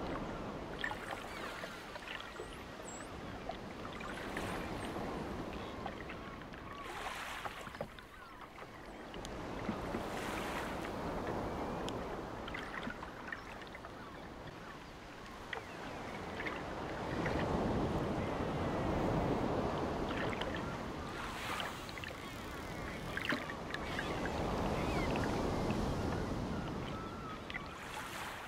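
Sea waves washing in and drawing back, swelling and fading every several seconds, with small splashes and trickles of water in between.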